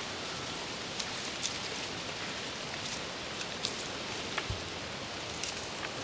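Steady outdoor background hiss with a few faint scattered ticks.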